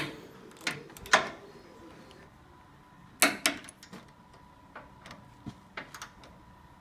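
Hand tools working on suspension bolts: scattered sharp metallic clicks and knocks, loudest as a quick pair about three seconds in, as the bolts are torqued down.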